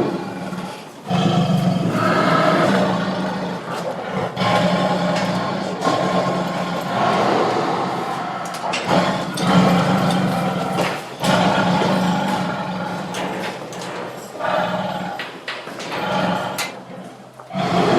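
Angry tiger growling and roaring in a string of long bouts, each a few seconds, broken by short pauses.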